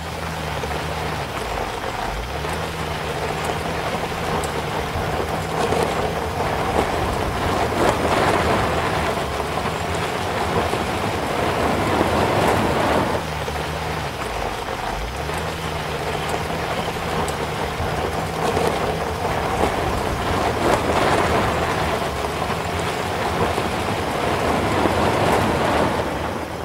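Omoda C5 SUV driving on a sandy forest dirt road: a steady rush of tyre and road noise over the engine's low hum. The engine note drops and picks up again twice, about two seconds in and again around the middle.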